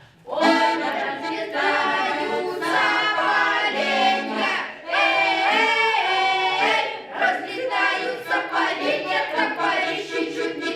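A group of children singing a Russian folk song together, the voices coming in about half a second in and carrying on with short breaths between phrases.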